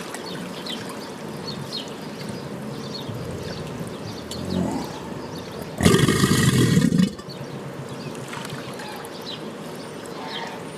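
Steady trickling water with faint chirps over it, broken about six seconds in by a sudden loud, rough burst lasting just over a second.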